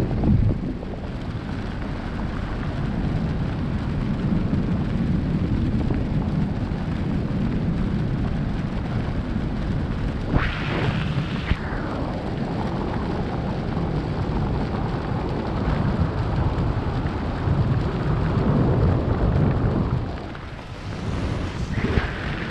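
Wind buffeting a camera microphone during a parachute descent under an open canopy: a steady low rumble, with a brief sharper gust about ten seconds in.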